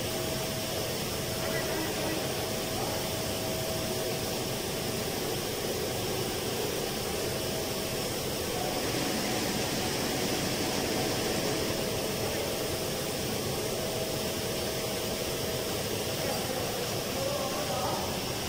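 Steady rushing noise of machinery and ventilation running in an equipment room, with a faint thin whine that drops out now and then.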